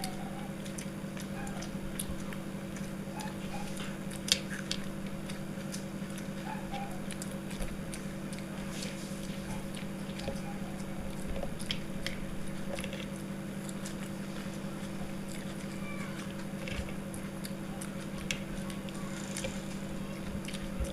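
People chewing and biting into chicken biryani, with scattered small clicks and mouth sounds, one sharper click about four seconds in, over a steady low hum.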